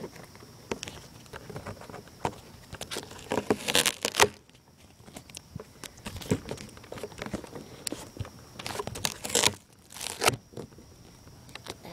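Close handling noise from a taped-on phone: fingers and adhesive tape rubbing and crinkling against it, with irregular rustles and sharp clicks, loudest about four seconds in and again about nine to ten seconds in.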